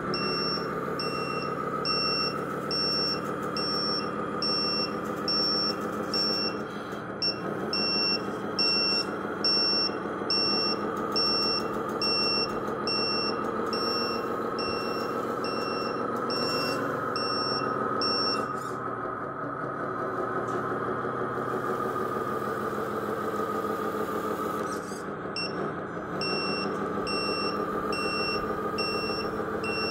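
Reversing beeper of a 1/14 scale RC Mercedes Zetros truck, beeping steadily about one and a half times a second over the steady hum of its drive. The beeping stops for several seconds past the middle, then starts again.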